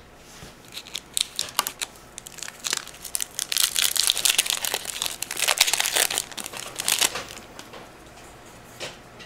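Foil Pokémon booster pack wrapper being torn open and crinkled by hand: a fast run of crackling crinkles, loudest from about three to seven seconds in, then dying down.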